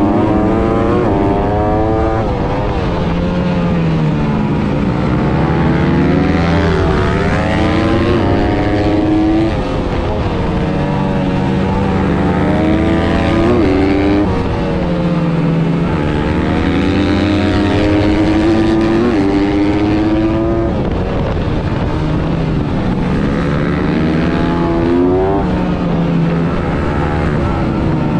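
Honda CRF250 supermoto's single-cylinder four-stroke engine, recorded on board under race riding. Its pitch repeatedly climbs as it accelerates and drops sharply back at each gear change or when the throttle is shut for a bend, with wind rushing past.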